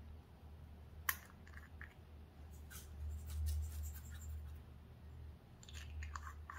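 Small plastic cosmetic pot clicking and tapping as it is handled: one sharp click about a second in, a few lighter ticks after it, and a quick run of clicks near the end, over a low steady hum.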